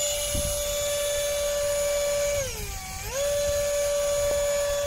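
The electric ducted fan of a Top RC Hobby Jet Star RC jet runs at a steady high whine while the plane is held for a hand launch. About two and a half seconds in, the pitch dips for about half a second, then climbs back to full.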